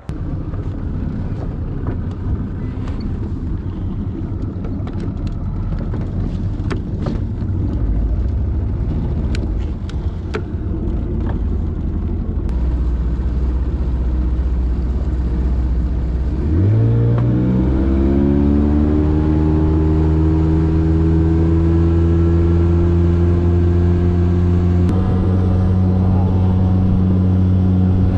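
Bass boat's outboard motor under way, with rough wind and water noise and a few sharp knocks. A little over halfway through the throttle is opened and the engine revs up, its pitch rising over a second or two, then runs steadily at speed.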